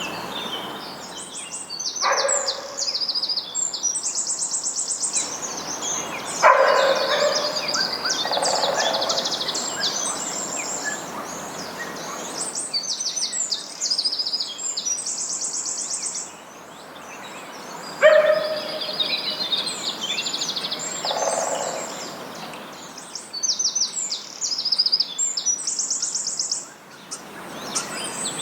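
Several songbirds singing, a dense run of quick high chirps and trills. Now and then a louder, lower call cuts in, four times in all.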